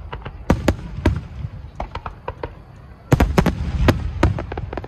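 Aerial firework shells bursting in a rapid barrage: repeated sharp bangs over a low rumble, densest a little after three seconds in.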